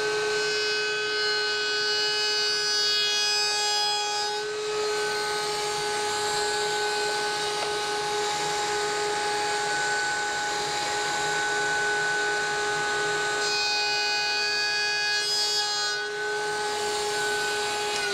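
Table-mounted router spinning a bullnose bit with a steady high whine. From about four to thirteen seconds in, a rough cutting noise rides over it as MDF trim stock, backed by a square block of wood, is fed across the bit to round its edges. The router begins to wind down right at the end.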